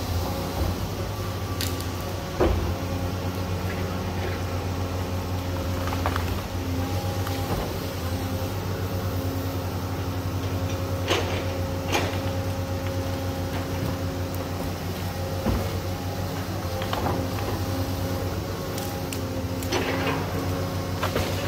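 A heavy machine's engine running steadily at an even pitch, with scattered clicks and knocks over it.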